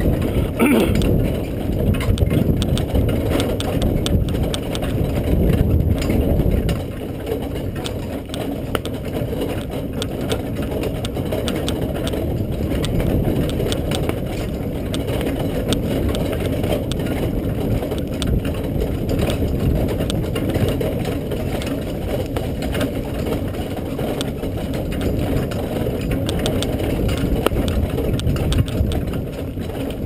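Horse-drawn carriage rolling along a sandy trail behind a trotting horse: a steady low rumble with rattling from the vehicle, easing a little about seven seconds in.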